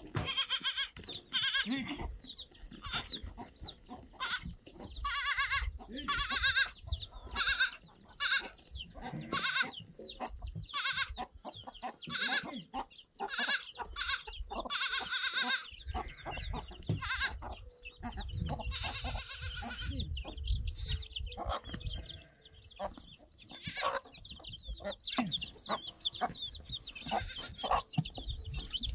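Goats bleating again and again, mixed with chickens clucking. High, thin chick peeping grows thicker near the end.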